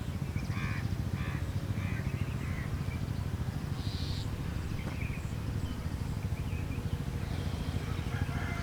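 Crows cawing: a quick run of about four short caws in the first couple of seconds, then scattered calls, over a steady low rumble.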